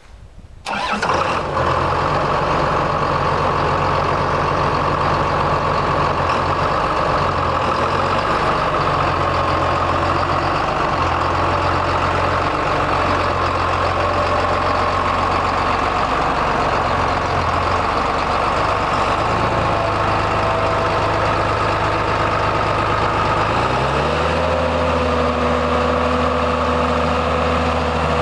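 John Deere 8410 tractor's six-cylinder diesel engine starting about a second in, then idling steadily. Near the end its speed rises a little and holds at the higher pitch.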